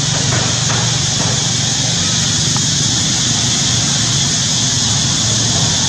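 Steady, unchanging background drone: a high, even hiss over a low, engine-like hum, with no distinct animal calls standing out.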